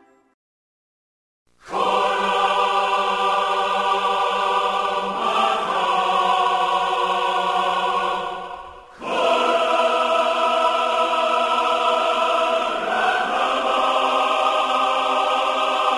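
Background music of slow, long-held choral chords, coming in after a moment of silence and dropping out briefly about halfway through before resuming.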